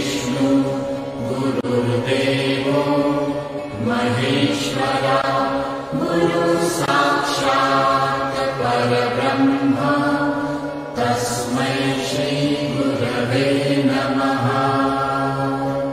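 A devotional chant sung over a steady low drone, with new sung phrases starting every few seconds.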